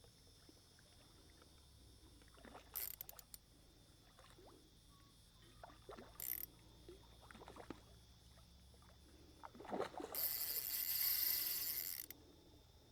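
Noises of a hooked carp being played on rod and line: a few short bursts of noise about 3 and 6 seconds in, then a louder rush of noise lasting about two seconds near the end.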